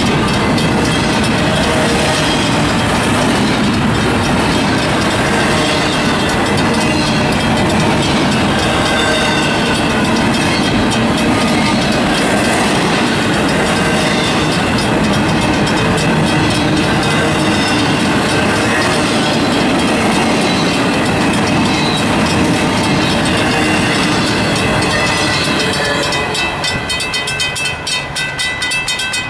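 Freight train of empty well cars rolling past a grade crossing, the wheels clattering steadily over the rail joints. About 26 seconds in the last car clears and the rumble falls away, leaving the crossing signal's bell ringing on.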